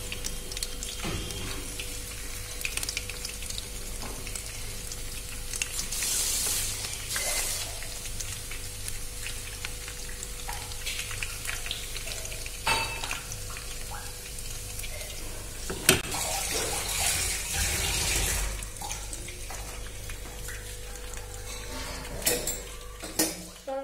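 Battered shrimp-head pakoras deep-frying in hot oil in a kadai, a steady bubbling sizzle. The sizzle swells twice, about six seconds in and again around sixteen seconds, as more batter goes into the oil, with a couple of sharp knocks of a utensil against the pan.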